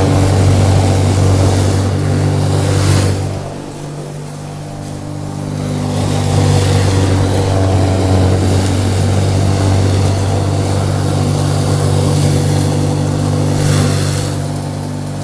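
Tornado electric feed crusher running under load, a steady motor hum under the grinding noise of straw and feed going through it. The grinding eases about three and a half seconds in and builds up again about two seconds later.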